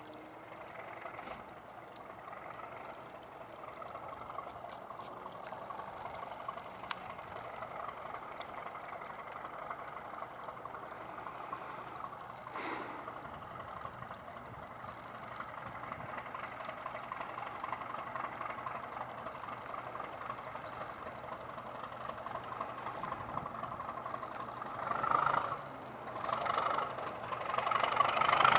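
English Electric Class 37 diesel locomotive heard at a distance, a steady rumble that slowly grows louder, with two louder swells near the end.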